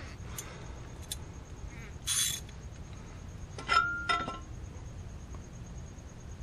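Metal hand tools clinking as a ratchet and wrench are handled at a brake caliper: a few light clicks, a short rustle about two seconds in, then two sharp ringing metallic clinks just before four seconds in.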